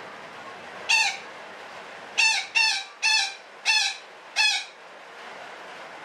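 Betet parakeet giving six short, loud, harsh screeching calls, each dropping slightly in pitch: one about a second in, then five in quick succession about half a second apart.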